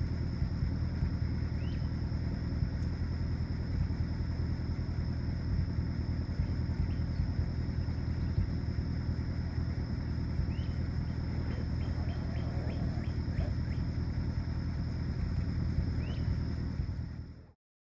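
1947 Chrysler Town & Country's 323 ci L-head straight-eight idling steadily. Over it is a steady insect drone, with a few short bird chirps and a quick run of light clicks about twelve seconds in. The sound cuts off just before the end.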